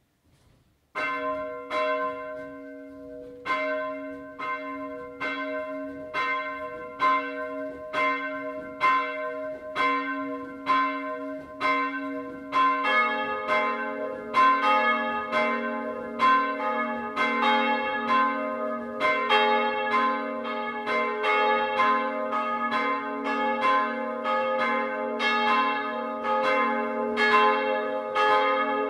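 Two historic bronze church bells swung in full peal. One bell starts ringing about a second in with roughly one clapper strike a second, and about 13 seconds in a second, deeper bell joins so that both ring together in overlapping strikes.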